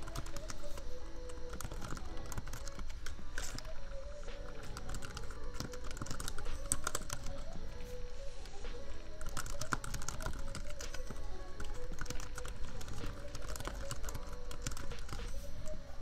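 Computer keyboard typing in irregular bursts of rapid key clicks, over soft lofi background music and a steady low laptop-fan hum.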